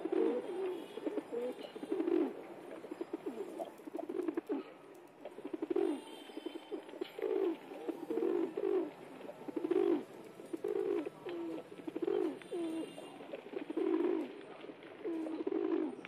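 A flock of feral pigeons cooing, many low coos overlapping and following one another about once a second.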